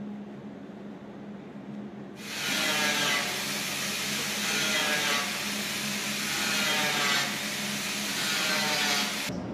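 A loud, steady hiss from a workshop tool starts suddenly about two seconds in and cuts off just before the end. It swells and eases about every two seconds.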